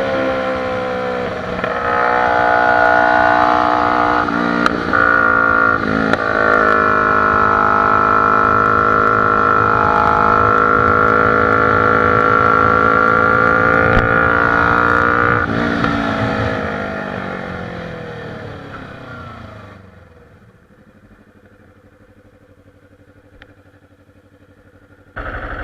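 Kawasaki Ninja 250's parallel-twin engine pulling hard at high revs, heard onboard, with a few quick gear changes early on and then a long steady high-rev run. About sixteen seconds in the revs fall away and the sound fades down to a quiet engine hum, before it jumps back to full level just at the end.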